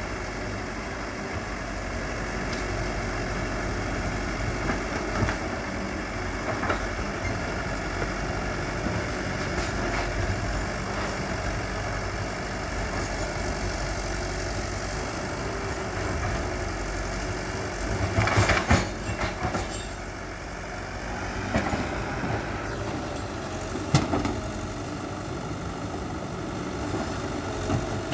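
Excavator's diesel engine running steadily. About two-thirds of the way through there is a brief cluster of sharp knocks and cracks, and a single sharp crack comes near the end.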